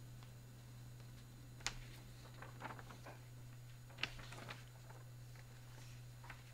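Quiet room tone with a steady low hum and a few faint clicks and taps, the two clearest about a second and a half and four seconds in.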